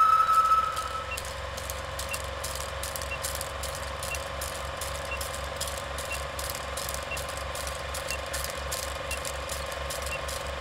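Old film projector countdown sound effect: a short high beep, then a steady mechanical clatter and hum with crackling clicks and a faint tick about once a second, cutting off suddenly at the end.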